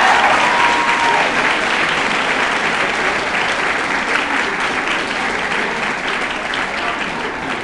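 Audience applauding, loudest at first and slowly dying down, with a brief cheer or whoop at the start.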